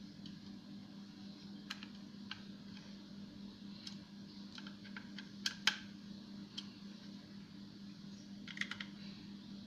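Irregular light key clicks, sparse and uneven, with a quick cluster of several near the end, over a steady low electrical hum.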